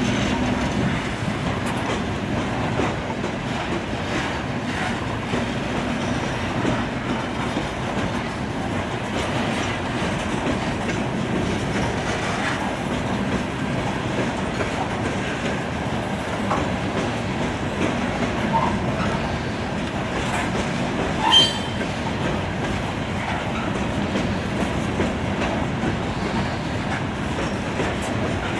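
A long train of aluminum coal hopper cars rolling past at steady speed, with a continuous rumble and wheel clatter over the rail joints. A brief, sharp wheel squeal stands out about three-quarters of the way through.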